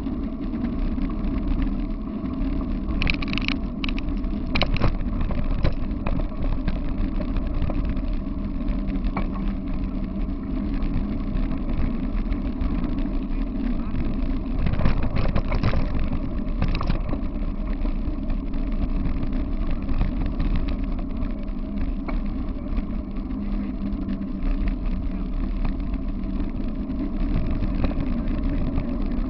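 Wheels of a dog-pulled rig rolling fast over a gravel path: a steady rumble with rattles and knocks from the rig, with clusters of sharper clicks about three seconds in and again around fifteen seconds.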